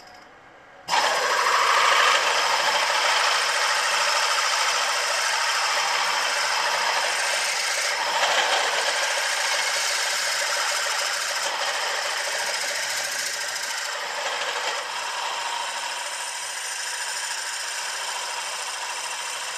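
Milling machine switched on about a second in and running steadily while a boring head takes the last cut through the 2-inch low-pressure cylinder of a model traction engine's cylinder block. It is a steady, hissing machining noise that eases slightly toward the end.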